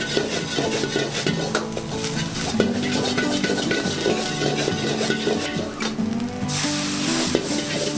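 A metal ladle scrapes and knocks against a steel wok as fried rice is stirred and tossed, over a steady sizzle of frying. Near the end a louder hiss rises for about a second.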